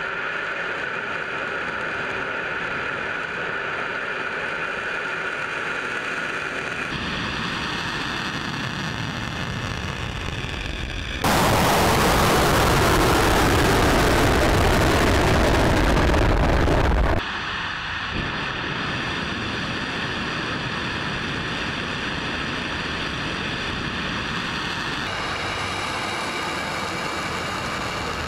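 Steady noise of a Soyuz-2.1b rocket's engines, cut abruptly between several stretches. The loudest and fullest stretch lasts about six seconds in the middle.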